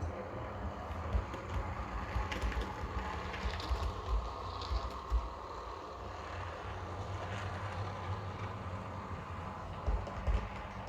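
OO gauge model train running on the track: a steady low hum with scattered light clicks, most of them in the first few seconds.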